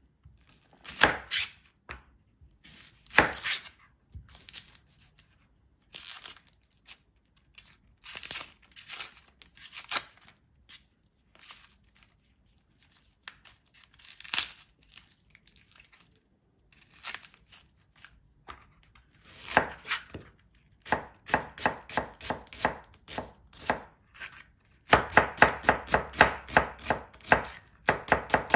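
A kitchen knife cuts an onion on a plastic cutting board. For most of the time there are scattered single cuts and scrapes as the onion is trimmed, peeled and halved. In the last few seconds the knife chops fast and evenly, about four strokes a second.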